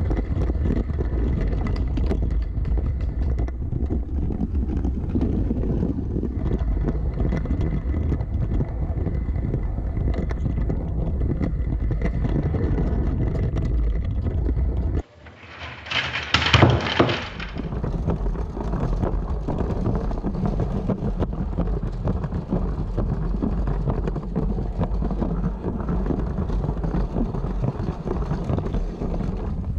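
Lego City battery train running on plastic track: a steady rattling rumble with a faint motor whine. About halfway through the rumble breaks off suddenly, a brief louder burst follows, and then the running sound resumes.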